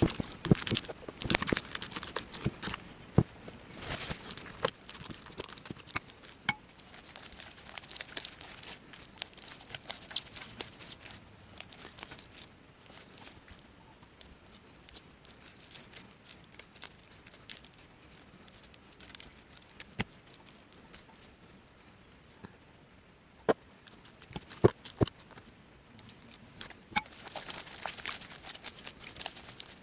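Hands handling slime-making materials: irregular crinkling and tearing noises with scattered sharp clicks and taps, busiest at the start and near the end and quieter in the middle.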